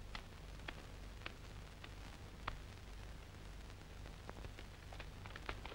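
Faint crackle of an old film soundtrack: scattered sharp clicks and pops over a low steady hum.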